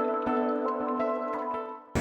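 Soft background music with sustained notes and gently changing pitch, fading out near the end.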